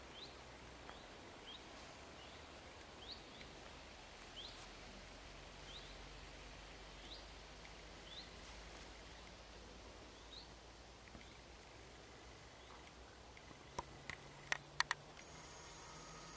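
Faint outdoor wildlife sound: a steady high insect buzz, with short rising chirps from a bird repeated every second or so that die away after about ten seconds. A few sharp clicks come near the end.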